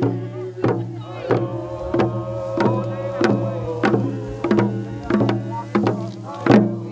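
A drum beaten at a steady pace of about one and a half strokes a second, with voices singing a prayer-dance song over a steady low drone.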